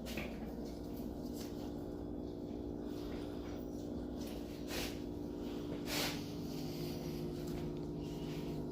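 Butcher's knife cutting the pork loin away from the ribs: a few short scraping cuts, the clearest about five and six seconds in, over a steady mechanical hum.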